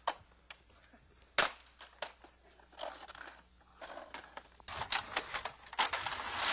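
Broken upright vacuum cleaner shoved across concrete and grit, its wheels and casing scraping and knocking: a sharp knock about a second and a half in, then dense crunching and crackling from about five seconds in. The vacuum's motor is not heard running.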